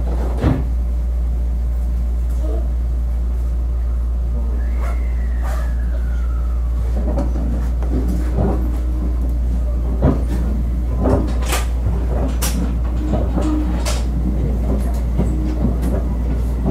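Electric commuter train pulling away from a station, heard inside the car over a steady low hum: a thud about half a second in as the doors shut, then, from about halfway through, scattered clanks and knocks with short low motor tones as the train starts to move.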